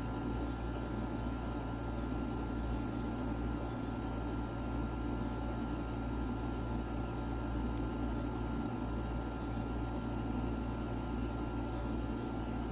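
Steady room tone: a low hum and even hiss with a couple of faint, thin, high steady whines, unchanging throughout.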